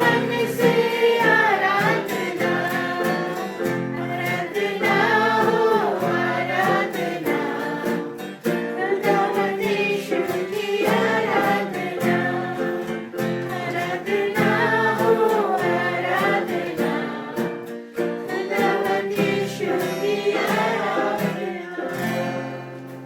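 Worship song: voices singing a melody over guitar and a steady beat, getting quieter near the end.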